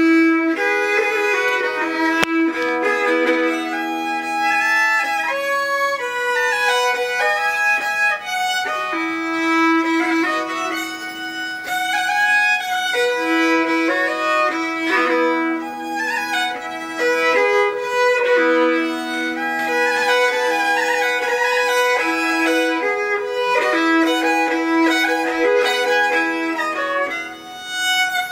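Hardanger fiddle bowed solo: a folk tune played over a held drone note, with the five sympathetic strings under the four bowed ones ringing along.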